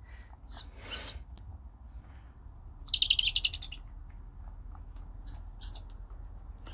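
Owlet's begging calls: short, high, rasping hisses, two in the first second, a longer, rapidly pulsing one about three seconds in, and two more about five seconds in. The chick is begging for food while it is hand-fed.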